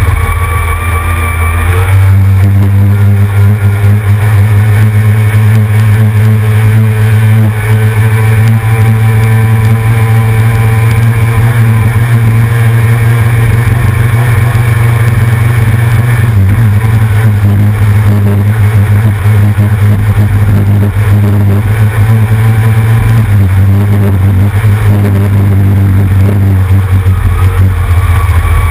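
C Stock racing hydroplane's outboard engine running at speed: a loud, steady drone that picks up about two seconds in and then holds, with a rushing hiss of wind and water above it.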